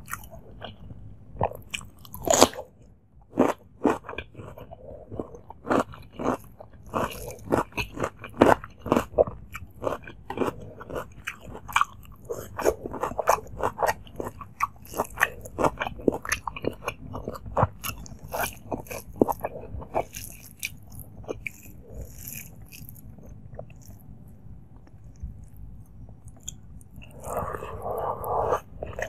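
Close-miked eating of rice and chicken curry by hand: wet chewing, lip smacking and crunchy bites, with many short clicks throughout. A louder, denser stretch of mouth and hand sounds comes near the end.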